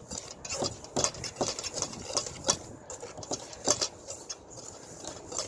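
Wire whisk stirring dry ingredients (flour, baking soda and baking powder) in a stainless steel mixing bowl, breaking up lumps. Its wires scrape and tick against the metal in irregular strokes, about two a second.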